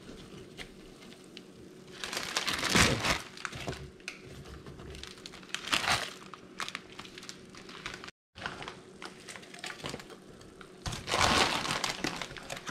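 Plastic food packaging crinkling and rustling in three bursts, about two, six and eleven seconds in, as ramen noodles and pork rinds are tipped from their bags into a pot.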